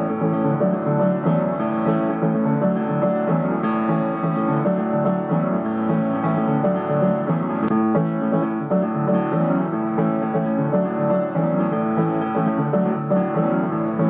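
Instrumental piano music playing steadily.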